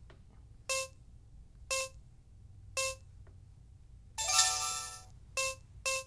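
Arrow Revolution touchscreen deadbolt keypad beeping as PIN digits are pressed, about once a second three times. About four seconds in comes a longer multi-note electronic chime, followed by two more quick beeps near the end.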